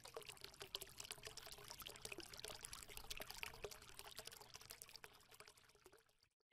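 Faint fizzing, crackling water sound, like liquid being poured or bubbling. It swells in, holds, then fades away about six seconds in.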